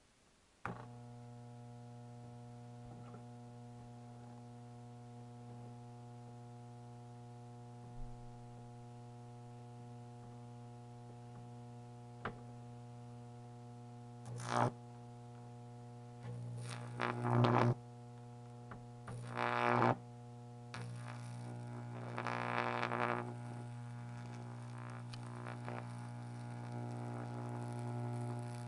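Microwave oven transformer switched on about a second in, giving a deep, steady hum. From about halfway on, the high-voltage arc from the electrode into the sand buzzes and crackles louder in several bursts of a second or two as the sand is melted into glass.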